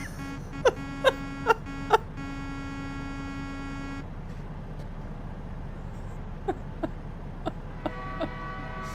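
Car horn honking: a few short blasts, then held for about two seconds, stopping about four seconds in and starting again near the end. Short, sharp, pitched sounds stand out over it, four in the first two seconds and five more later on.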